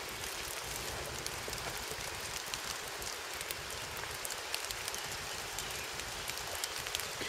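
Steady rain falling, with many small drop ticks scattered through it.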